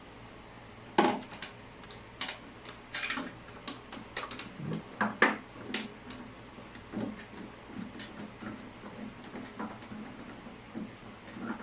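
Irregular knocks, clinks and scrapes of hard objects being handled, plumbing fittings and tools, with two sharper knocks about one and five seconds in.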